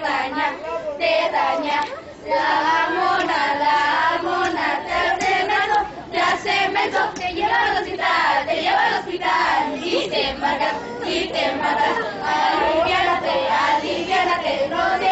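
A group of children singing and chanting together in unison, with short breaks between lines about 2 and 6 seconds in.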